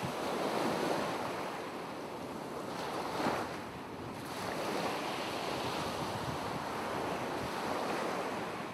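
Ocean surf: a steady wash of waves, with a brief swell a little after three seconds in.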